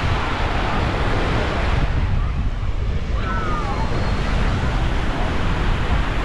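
Wind buffeting the microphone in a rumbling rush, over the hiss of small waves washing onto the beach.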